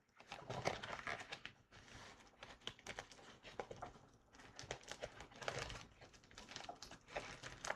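Packaging being handled: irregular crinkling and rustling with light clicks and taps.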